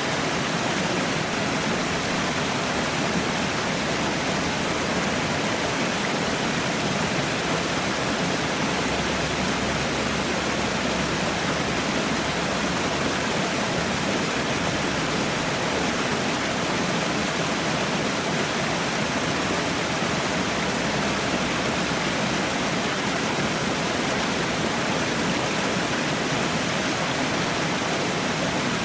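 Falling water, a steady, unbroken rush like a small waterfall or cascade.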